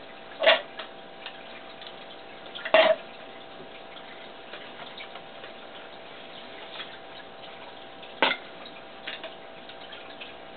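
Three sharp clicks at uneven intervals, the first about half a second in, the second near three seconds and the third about eight seconds in, with a few faint ticks between, over a steady hiss and a faint hum.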